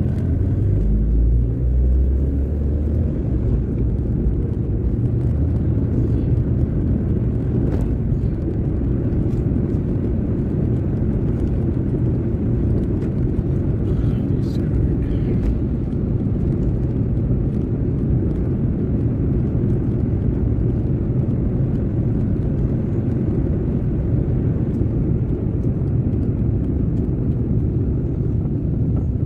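Steady low rumble of a car driving at a constant pace: engine and tyre noise heard from inside the cabin.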